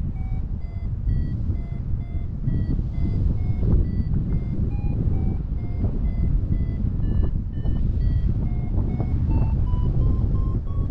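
Paragliding variometer beeping about twice a second, its pitch stepping up and down and rising toward the end, the beeps signalling that the glider is climbing in lift. Wind rushes steadily on the microphone underneath.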